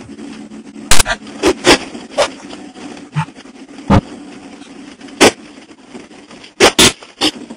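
Inside a truck cab driving a rough dirt track: a steady low engine drone, broken by about ten short, loud, sharp cracks at irregular intervals, two of them close together near the end.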